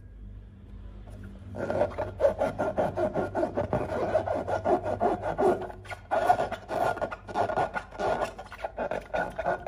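Hands rubbing and squeezing a filled latex balloon: fingers stroking the rubber skin in quick, dense rubbing strokes. The rubbing starts about a second and a half in and then runs without a break.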